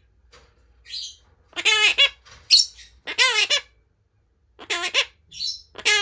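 Monk parakeet calling: four short squawks with a wavering pitch, roughly one every second and a half, with softer high chirps in between.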